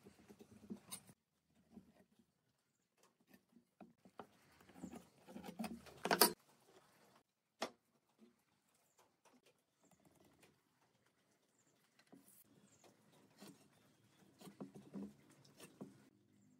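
Quiet scratches, taps and knocks of marking out and handling wood on a workbench: pencil on pine, a steel square and boards picked up and set down, with a sharp knock about six seconds in and a click a little later.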